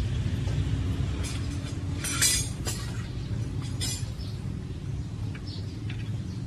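Compressed air spitting from the drain valve of a Hino Profia F20C's air tank in a few short hissing bursts, the strongest about two seconds in, as the tank is blown down to purge collected water. A steady low engine hum runs underneath.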